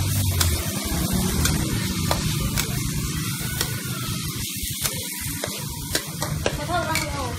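Food sizzling and frying in a hot pan, a steady hiss with occasional light clicks.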